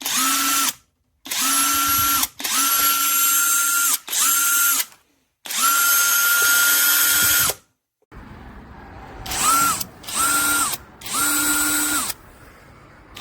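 Cordless brushless drill run free with no load in eight short trigger pulls: each time it spins up quickly to a steady whine, holds it for a moment and stops.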